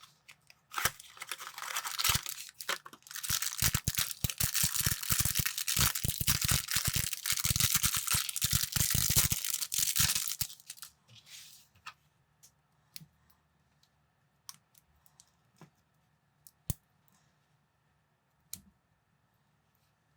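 A plastic parts bag crinkling and being torn open for about ten seconds, dense with rustling and sharp crackles. Then come a few scattered light clicks of plastic bricks being handled.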